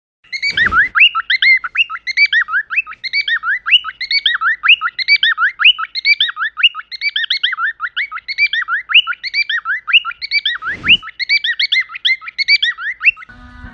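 A bird chirping in a fast, continuous run of quick rising high-pitched notes, stopping abruptly near the end.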